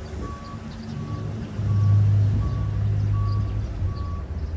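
A vehicle's reversing alarm beeping at a steady pace, about one short beep every 0.7 seconds, over the low running of an engine that swells louder around the middle.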